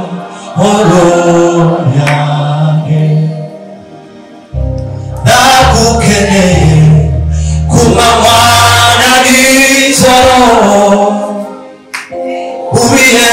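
Live gospel singing: a man's voice sings phrases over sustained low instrumental notes, with other voices joining in.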